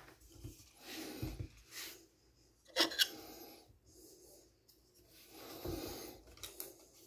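Hands handling small parts of a model airplane: light rubbing and scraping with a few small clicks, the sharpest about three seconds in.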